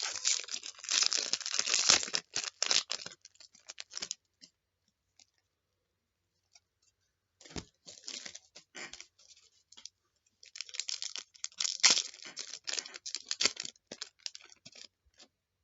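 A trading-card pack wrapper being torn open and crinkled, with the cards handled, in three bouts of rustling and tearing separated by quiet gaps.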